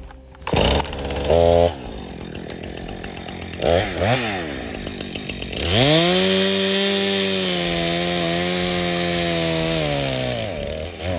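Jonsered CS2255 two-stroke chainsaw revved in two short blips, then held at high revs for about five seconds before dropping back near the end.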